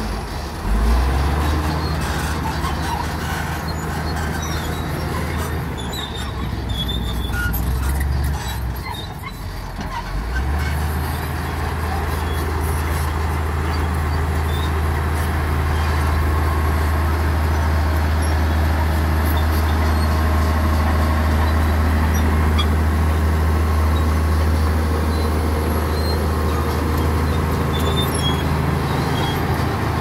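A LiuGong crawler bulldozer's diesel engine running under load as the blade pushes rocky soil. The engine note drops away about eight seconds in and comes back strongly a couple of seconds later, then runs steady.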